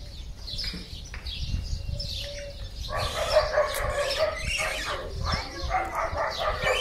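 Birds calling in a zoo enclosure, with calls scattered at first and then a denser, louder run of calls starting about three seconds in.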